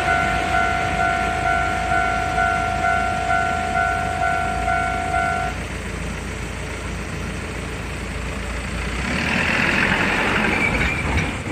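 Japanese level-crossing warning bell ringing in steady electronic pulses about twice a second, stopping about five and a half seconds in, over the low rumble of a freight train. A broad swell of noise rises near the end.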